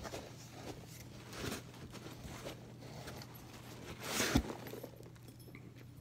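Hands rummaging in a cardboard shipping box of VHS tapes: scattered rustling and light knocks of cases and packing. A louder rustle ends in a knock about four seconds in, over a low steady hum.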